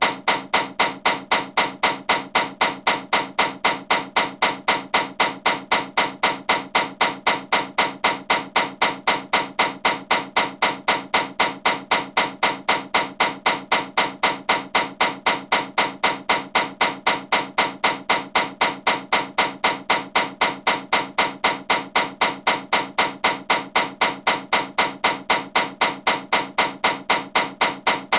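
Ceiling fan running with a loud, steady clacking knock, about three knocks a second, repeating evenly with each turn.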